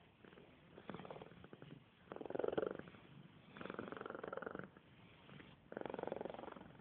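Cat snoring: a pulsing, rattling sound on each breath, four breaths about one and a half seconds apart.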